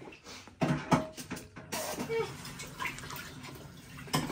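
Water sloshing and splashing in a large plastic jug as someone drinks from it in gulps, with a few sharp, loud splashes or knocks about a second in.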